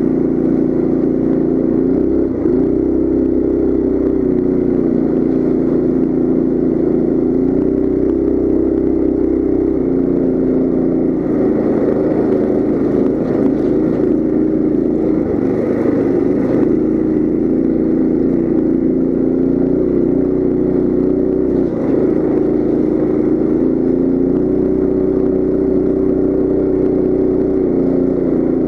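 Coleman CT200U mini bike's 196cc single-cylinder four-stroke engine running under throttle while riding, its speed rising and dropping slightly a few times as the throttle changes.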